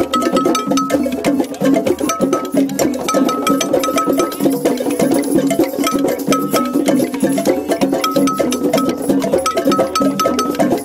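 A didgeridoo drone while sticks tap quickly on the instrument's body, making a dense clicking rhythm. A higher ringing note is struck in short runs of quick beats over the top.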